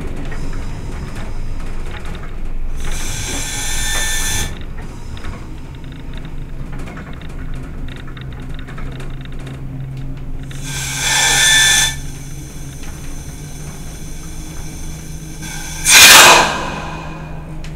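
Diesel engine of a Class 122 railcar running with a steady low hum, broken three times by short bursts of hissing; the last burst, about sixteen seconds in, is the loudest.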